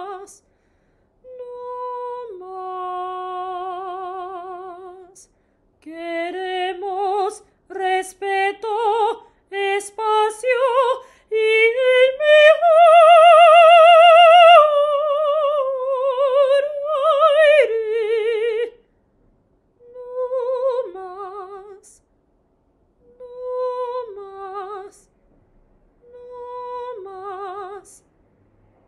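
A woman singing solo and unaccompanied in an operatic style with wide vibrato. Her phrases are separated by short pauses, and about halfway through she climbs to a long, loud high note before coming back down.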